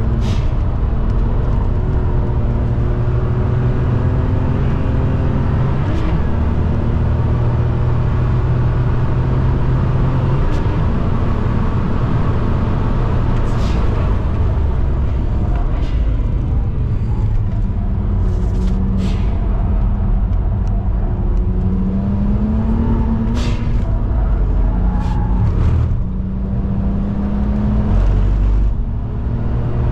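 In-cabin sound of a BMW E92 335i driven hard on a race track. The engine note climbs and then drops back several times, as with gear changes, over steady road and wind noise, with a few sharp clicks.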